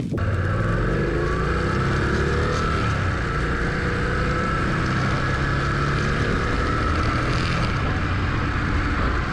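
Adventure motorcycle engine running steadily under way, with wind noise. Its pitch rises for a couple of seconds about a second in as the bike accelerates.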